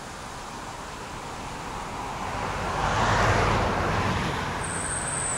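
A car passing on the road, its tyre and engine noise swelling to a peak about halfway through and then easing off a little.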